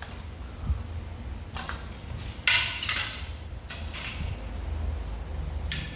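Fishing rods being picked up and shifted among others on a floor: a few short scraping and rustling sounds, the loudest about two and a half seconds in.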